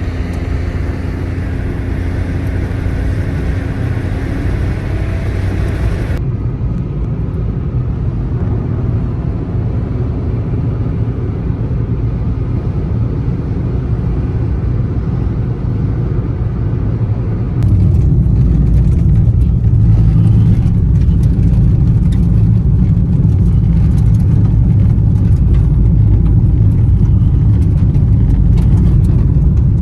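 A vehicle driving in strong wind, with a heavy low rumble of wind and road noise. About six seconds in the upper hiss drops away suddenly. From about eighteen seconds in it grows louder, and a rapid patter of small hits on the vehicle joins in.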